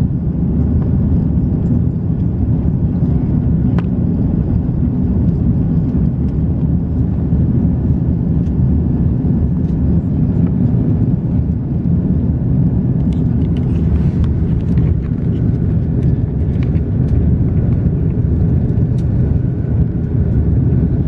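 Steady low rumble of an Airbus A330-200's engines and rushing air, heard inside the cabin as the airliner climbs out after takeoff. A few light ticks come about two-thirds of the way through.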